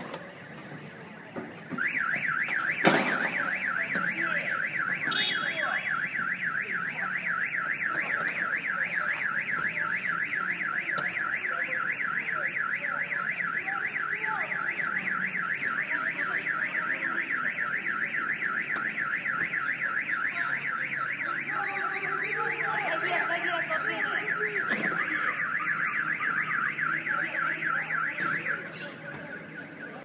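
Car alarm sounding a fast warbling tone that sweeps rapidly up and down, starting about two seconds in and stopping near the end. A single sharp knock is heard about three seconds in.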